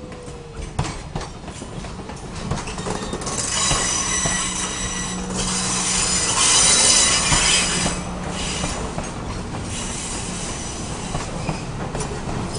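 Railroad passenger cars and caboose rolling past on a curve: the steel wheels squeal in several steady high tones, with clicks over the rail joints. The squeal grows loud about three and a half seconds in, eases off after eight seconds and comes back near the end.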